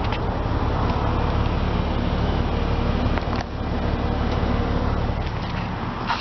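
2006 BMW 325xi's 3-litre inline-six idling steadily, heard at the twin exhaust tips.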